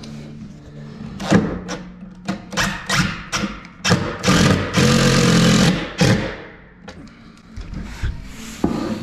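Cordless impact driver hammering a screw into the bottom panel of a flat-pack kitchen cabinet for just under two seconds, about four seconds in, with scattered knocks around it.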